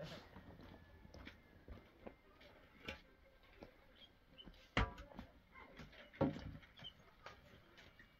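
Quiet with scattered faint clicks and knocks, and two louder knocks about five and six seconds in.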